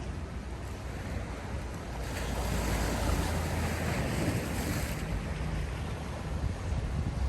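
Sea waves washing on the shore; one wave swells about two seconds in and dies away after about five seconds. Wind rumbles on the microphone underneath.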